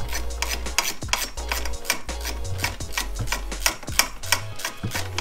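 Quick, sharp metallic clicks of a ratchet wrench turning a bolt, over background music with a steady bass line.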